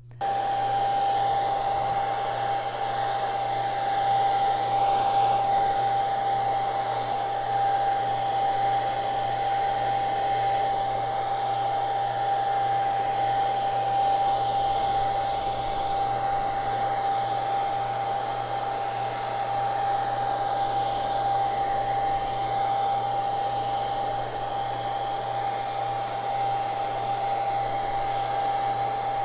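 Handheld hair dryer on its low setting, coming on at once and running steadily: an even blowing rush with a constant mid-pitched whine of its fan motor.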